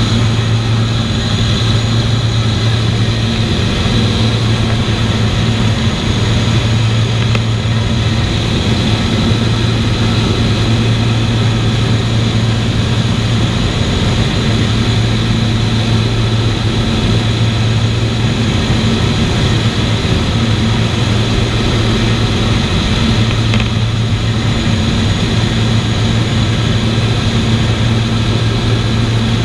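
Avro Lancaster bomber in cruising flight: its four Merlin V12 piston engines and propellers make a loud, steady, deep drone with a strong low hum.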